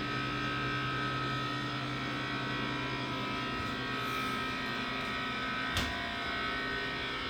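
Walk-in refrigerator's cooling unit running with a steady hum, with a short knock about six seconds in.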